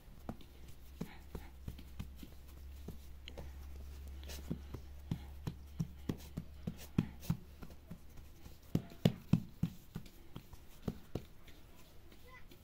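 Irregular knocks and taps, coming thicker and louder about nine seconds in, over a low steady hum.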